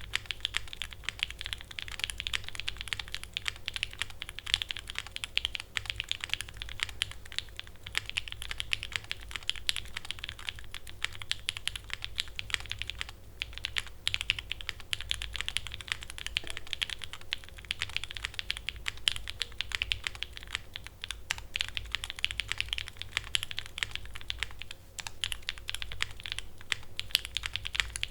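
Typing on a mechanical keyboard, a Parallel Portal with lubed Bolsa Supply Zaku switches in an FR4 plate and GMK keycaps: fast, continuous keystrokes with a few brief pauses.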